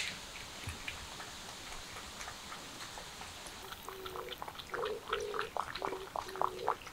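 A cat lapping liquid from a plastic bowl: quick wet laps, about two to three a second, starting about four seconds in.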